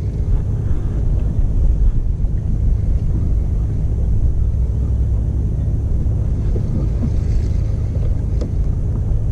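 Steady low rumble aboard a small boat on open water, with wind buffeting the microphone.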